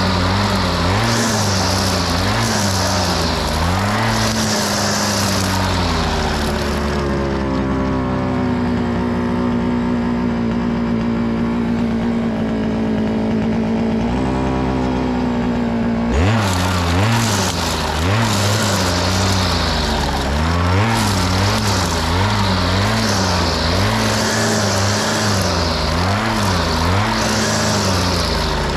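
Grass trimmer running and cutting. The motor's pitch dips and recovers again and again as the head is swept through grass and weeds, with the hiss of the cutting line. For a stretch in the middle it runs at a steady, higher pitch without cutting, then the cutting sweeps start again.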